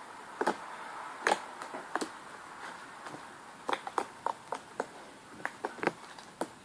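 Slime being squeezed and worked in the hands, giving irregular wet clicks and pops, closer together in the second half.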